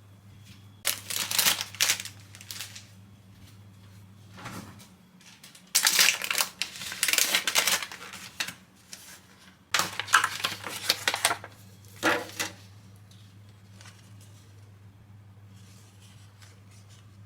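Crinkling and rustling of packaging being handled, in four bursts, over a steady low hum that drops out for a few seconds in the middle.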